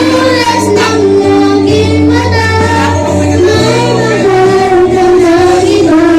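A song: one voice singing long held notes over an instrumental backing track.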